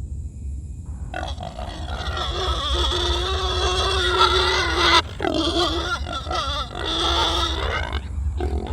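Monkey calling: two long, wavering, high screaming calls, the first about four seconds long and the second about three, followed by a few short broken calls near the end.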